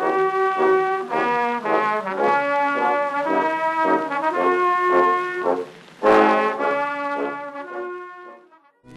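Brass music with trombone and trumpet playing a quick run of notes. About six seconds in it breaks off briefly, then comes back on a loud held chord that fades away near the end.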